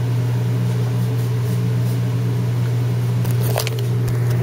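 Steady low electric hum of commercial kitchen machinery, with a few light clicks of handling about three and a half seconds in.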